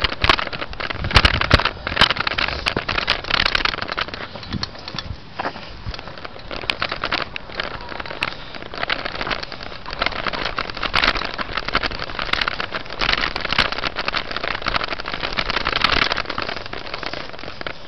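Bicycle riding over a rough dirt and gravel trail: the tyres crackle over loose stones and the bike rattles with many sharp clicks and knocks.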